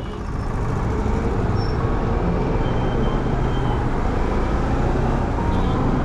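Motorcycle riding through city traffic: the bike's engine and road and wind noise as one steady rush, with the surrounding traffic mixed in.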